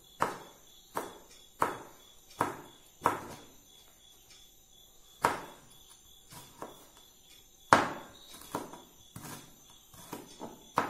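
Kitchen knife chopping green chillies on a plastic cutting board: five sharp chops in a steady rhythm about two-thirds of a second apart, then a pause and a run of lighter, irregular cuts, with the hardest chop about eight seconds in.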